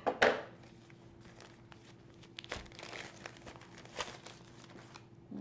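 Paper and plastic packaging crinkling as it is handled, with a loud crackle right at the start and then a few scattered crinkles.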